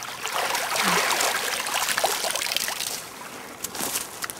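Water trickling and splashing, swelling for about two seconds, as a landing net is handled at a stream's edge. A few sharp clicks of handling come near the end.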